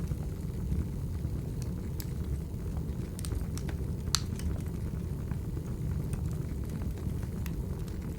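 Wood fire crackling: scattered sharp pops and snaps, the loudest about four seconds in, over a steady low rumble.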